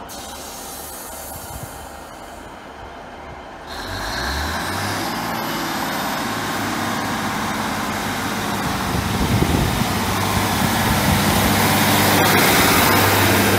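Class 150 Sprinter diesel multiple unit's underfloor diesel engines revving as the train pulls away from the platform. The sound jumps up sharply about four seconds in, with a rising whine over a steady engine note, and grows louder as the carriages move past close by.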